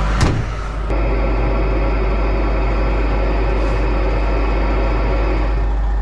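A Volvo semi-truck's diesel engine idling steadily, heard from inside the cab, after a sharp click about a quarter second in.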